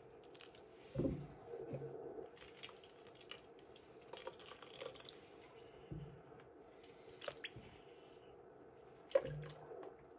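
Faint wet squishing and dripping of hands squeezing lumps of freshly churned butter to press out the buttermilk, with a few soft thumps as the lumps are set down.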